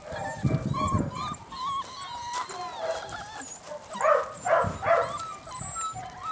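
Several puppies whimpering and squealing over one another in high, wavering whines, with a few louder yelps about four to five seconds in.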